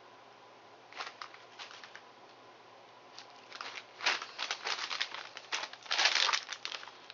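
Snack bag crinkling as it is handled, in bursts of crackles: a short one about a second in, then louder, longer runs around four and six seconds in.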